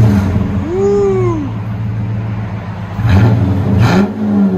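Dodge Charger R/T's 5.7-litre HEMI V8 at the tailpipes, breathing through a 2¼-inch X-pipe cat-back with Carven R-Series mufflers and the resonators deleted. It is revved up and back down about a second in, settles to idle, then is blipped twice more near the end.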